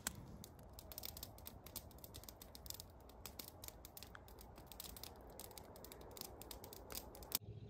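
Faint, irregular crackling clicks over a low background hum, cutting off suddenly near the end.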